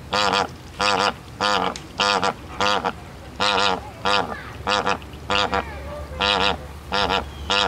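Flamingos honking: a run of short, goose-like honks, about one and a half a second.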